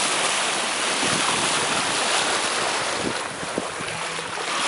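Water rushing and splashing along the hull of a sailing yacht under way, with wind buffeting the microphone: a loud, steady hiss.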